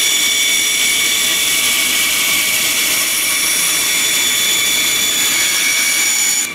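Bandsaw blade cutting through a plywood board fed steadily by hand: a steady high whine over a rasping saw noise, which drops away suddenly at the very end as the cut finishes.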